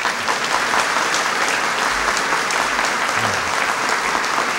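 A crowd applauding steadily, dense clapping from many hands.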